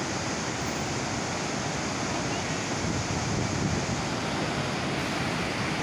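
Floodwater pouring through the open crest gates of Srisailam Dam's spillway and crashing into the river below: a steady, unbroken rush of falling water and spray.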